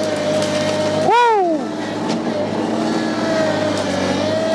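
Ventrac 4520 compact tractor's 24-horsepower three-cylinder Kubota engine running steadily under load while its front grapple pushes a tree stump. About a second in, a short whooping cry rises and falls in pitch over the engine.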